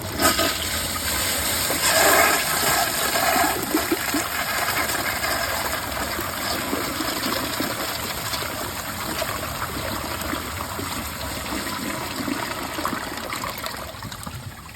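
2011 Glacier Bay toilet flushing with its tank overfilled and its siphon jet clogged: a click of the handle, then a rush of water loudest about two seconds in, settling into a steady run of water that slowly fades and drops away near the end.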